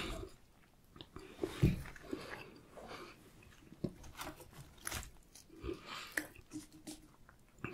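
Close-miked chewing and biting on fried food, with scattered soft clicks and small handling noises as crinkle-cut fries are picked up and dipped in sauce.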